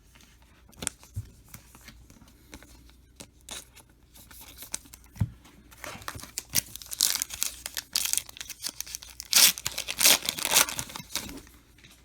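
A trading-card pack wrapper being torn open and crinkled. Scattered light clicks and rustles at first, then a run of loud tearing and crinkling from about six seconds in until near the end.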